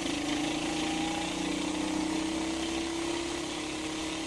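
Duromax 440cc 18 hp single-cylinder engine driving a 1975 MGB through its four-speed gearbox. It runs steadily under throttle as the car accelerates in gear.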